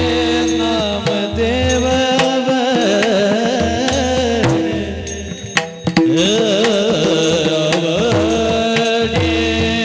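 Varkari kirtan music: a voice singing a gliding devotional melody over steady held tones, with a mridang drum keeping the rhythm. The music dips briefly about five and a half seconds in, then comes back full.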